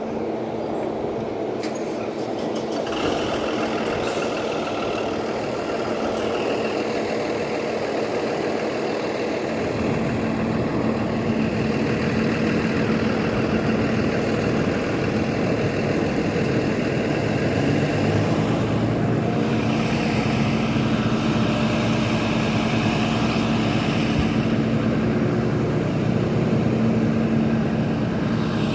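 A large vehicle's engine running steadily, with a steady hum; its low rumble grows louder about ten seconds in.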